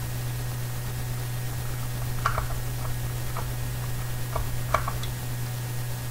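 A few light clicks and taps as a plastic model foot base and a screwdriver are handled, over a steady low hum.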